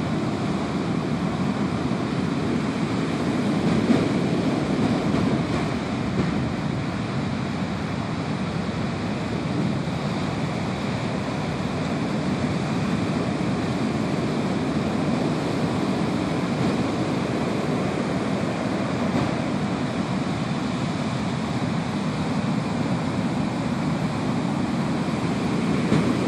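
Ocean surf: large white-capped waves breaking and washing up a sand beach, a steady rush of water with small swells in loudness, one about four seconds in.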